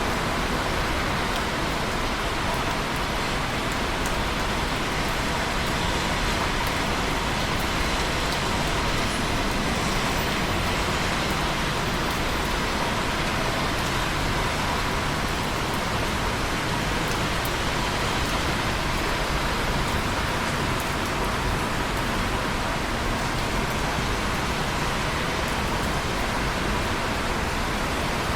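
Steady rain falling, an even hiss with faint scattered drop ticks, unchanging throughout.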